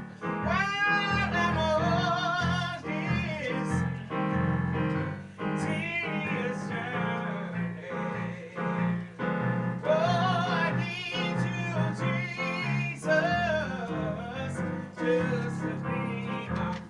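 A solo singer with piano accompaniment, singing long held notes with a wide vibrato in several phrases with short breaths between them.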